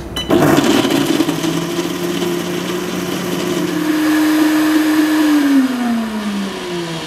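Commercial blender with a sound-enclosure cover starting up and running, blending ice with sugarcane juice into a smoothie. Its motor hum holds steady, shifts in pitch about four seconds in, then falls in pitch over the last couple of seconds as the timed cycle ends and the motor spins down.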